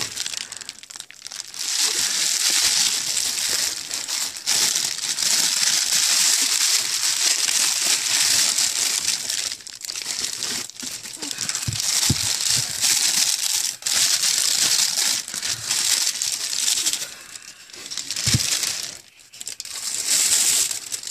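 Bubble wrap and a plastic bag crinkling and rustling as they are handled and pulled open, on and off with a few short pauses.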